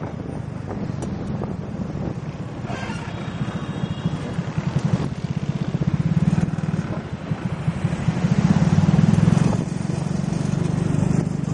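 Motorcycle engine running steadily underneath a pillion passenger while riding through city traffic, with a low, fast, even pulse. It grows louder about eight seconds in, then drops back suddenly near ten seconds.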